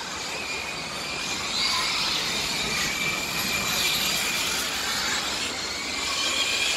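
Radio-controlled model race trucks driving on the track, their motors whining and swelling as they pass.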